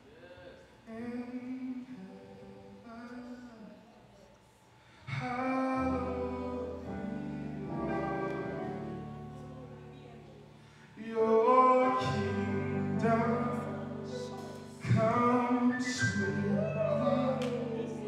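Live gospel worship singing: a lone voice sings softly, then about five seconds in sustained low chords and fuller voices come in, and the music swells louder twice in the second half.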